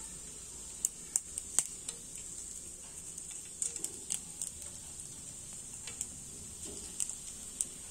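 Mustard, cumin and fenugreek seeds frying in hot oil for a tempering: a steady sizzle with scattered sharp pops and crackles.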